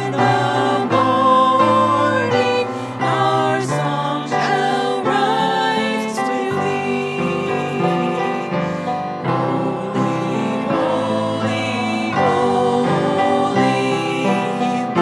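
Gospel-style Christian worship music: voices singing together over keyboard accompaniment, continuous and full.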